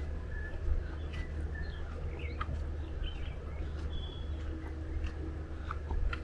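Birds chirping in scattered short calls and brief rising and falling notes, over a steady low rumble, with a few sharp clicks.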